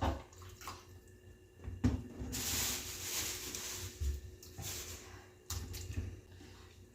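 Kitchen handling sounds: scattered light knocks and clunks of things being moved and set down, with a hissing noise lasting about a second and a half in the middle.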